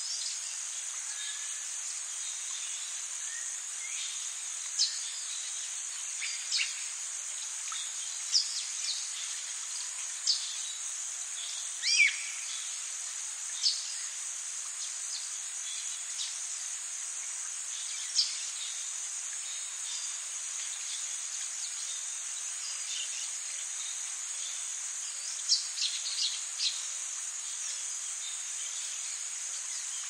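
Nature-sound background: a steady high chirring of insects, with short bird chirps every few seconds and several in quick succession near the end.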